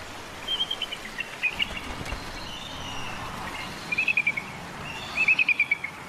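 Bald eagle calling: several short series of high, thin chirping notes, each series falling slightly in pitch, the loudest about four and five seconds in, over a steady outdoor hiss.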